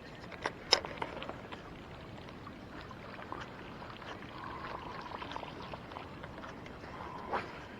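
Light water splashing and trickling beside a small johnboat, with a few sharp knocks, the loudest near the start and another near the end.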